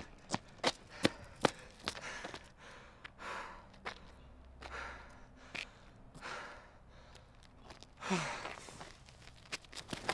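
A man breathing heavily, with several loud breathy exhales and a longer, louder sigh with a falling voiced tone about eight seconds in. Sharp footstep clicks on hard ground come in the first second and a half.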